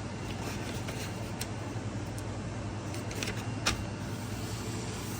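Steady low background hum with a few faint clicks, about one and a half, three and three and a half seconds in.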